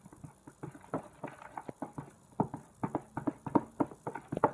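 A spoon stirring fluffy slime mixture (white glue, shaving foam, moisturiser and borax activator) in a bowl, making an irregular run of quick sticky clicks and taps against the bowl, several a second.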